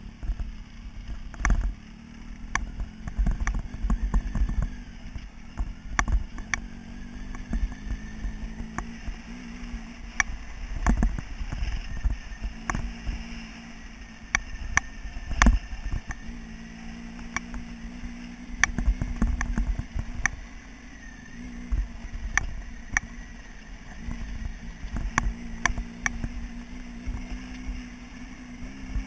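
A motorcycle riding slowly over a loose gravel track: its engine hums steadily at low speed under a rumble of wind on the microphone. Frequent sharp knocks and rattles come as the bike jolts over the stones.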